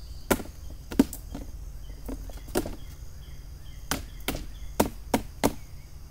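A folded paper seed packet being unfolded by hand: a series of sharp, irregular paper snaps and crinkles.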